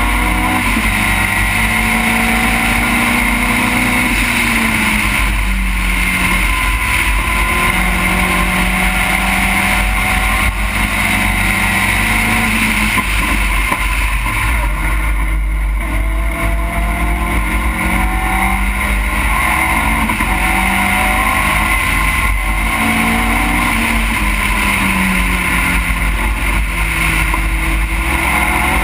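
A race car's engine heard from onboard at racing speed, its pitch repeatedly climbing and then dropping as it works through the gears and slows for corners. Heavy wind rumble on the microphone runs underneath.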